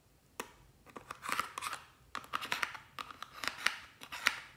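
A single sharp click, then short bursts of crisp, crunchy scraping and clicking: a metal spatula working against a hard plastic toy eyeshadow palette and its pressed powder.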